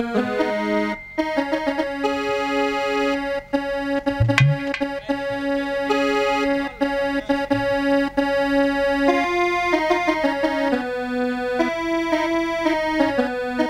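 Instrumental interlude of a Hindi Krishna bhajan, with no singing: a keyboard plays a melody of long held notes that step between a few pitches.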